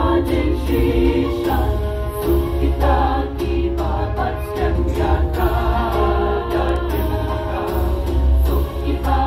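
Mixed choir of women's and men's voices singing a hymn through stage microphones, notes held and moving in phrases. A steady low rumble runs underneath.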